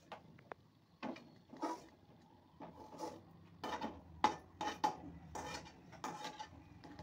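A spoon scraping and tapping against a metal kadai while fried dried prawns are scooped out of the oil: a series of light scrapes and knocks, several leaving a short metallic ring.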